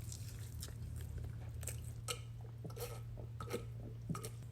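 Close-up mouth sounds of a person chewing fried chicken: scattered wet smacks and soft crunches, with a steady low hum underneath.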